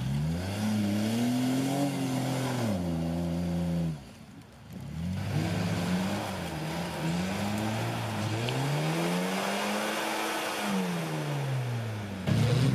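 Off-road 4x4 engines revving hard in deep mud, the pitch climbing and falling with the throttle. There is a brief break about four seconds in, and after it the engine is revved up and down several times.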